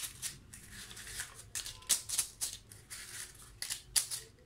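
Paper cupcake liners crinkling and rustling as fingers press them into the cups of a metal muffin tray, in a string of short, crisp rustles, the sharpest about four seconds in.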